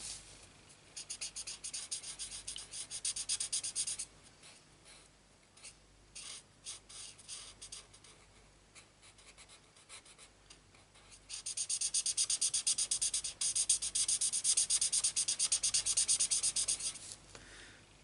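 Marker pen scratching back and forth on card in quick short strokes as a stamped image is coloured in. Two long spells of rapid strokes, from about a second in to four seconds and again from about eleven to seventeen seconds, with scattered strokes between.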